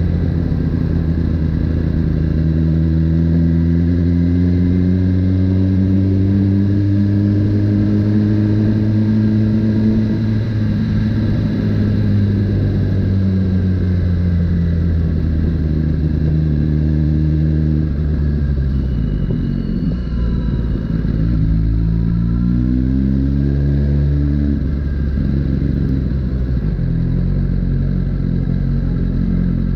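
2018 Suzuki GSX-R1000R's inline-four engine running at low road speed, heard close from on the bike. Its pitch drifts slowly up over the first ten seconds, then dips and climbs again with throttle changes about two-thirds of the way through.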